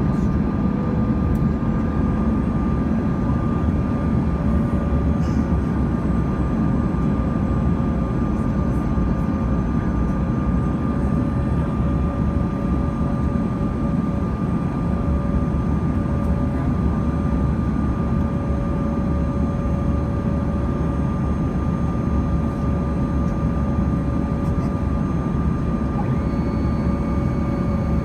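Steady cabin noise inside a Bombardier CRJ-200 in flight: a deep rush of air and engine hum from its rear-mounted GE CF34 turbofans, with a steady whine on top. Near the end a higher whine comes in.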